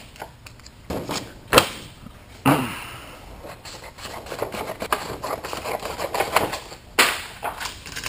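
Scissors snipping through a manila-folder paper template, with paper rustling and a couple of sharp knocks as the folder and tools are handled.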